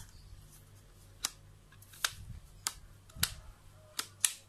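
Sharp plastic-and-metal clicks from a DSLR and Tamron 90mm f/2.8 macro lens being handled, with hands turning the lens hood and focus ring. There are six clicks at uneven intervals, two of them close together near the end.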